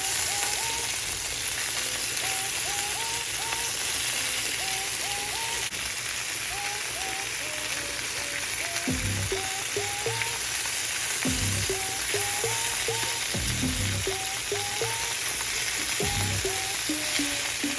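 Onions and bell peppers sizzling as they sauté in a Dutch oven, a steady frying hiss. A repeating pattern of short rising tones sounds over it, with a few low knocks from about halfway through.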